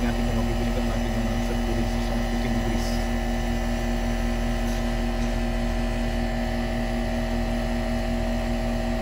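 Outdoor central air-conditioner condensing unit running steadily: the hermetic compressor's hum together with the condenser fan. The system is undercharged and is being topped up with refrigerant while it runs.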